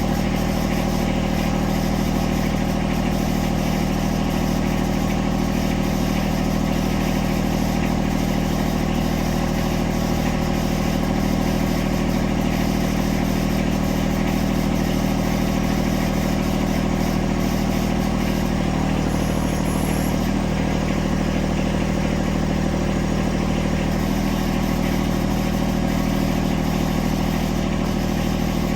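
Compact diesel tractor engine, a John Deere 1026R's, running steadily at a constant speed.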